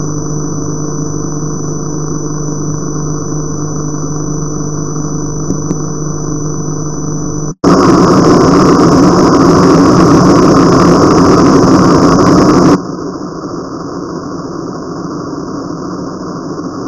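Sound of a weak analog TV channel through the receiver: a steady buzz with hiss, which cuts out about seven and a half seconds in. Loud static hiss follows for about five seconds as the picture is lost, then drops to a quieter hiss about thirteen seconds in.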